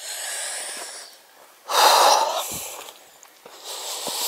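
A hiker's heavy breathing close to the microphone: three noisy breaths, the middle one the loudest.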